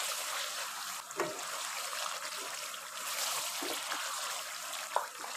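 Mutton sizzling steadily in hot ghee in a karahi, the yogurt's water cooked off so the meat is now frying in the fat. A wooden spoon stirring it knocks against the pan a couple of times.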